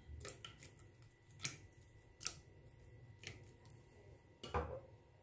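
Fingers crumbling a block of fresh yeast into warm milk in a glass bowl: a few faint, sparse clicks and ticks, about one a second, the loudest about four and a half seconds in.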